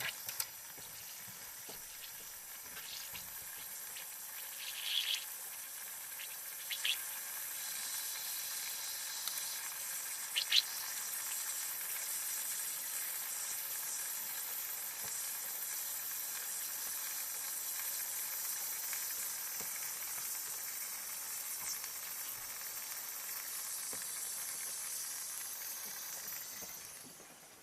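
Steady hiss of water running through the RV's plumbing under city water pressure, with a few faint clicks; it fades out near the end.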